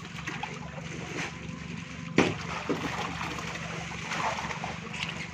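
Water splashing and sloshing as a net bag of harvested tilapia is worked in the pond water, over a steady low hum. A sharp knock about two seconds in.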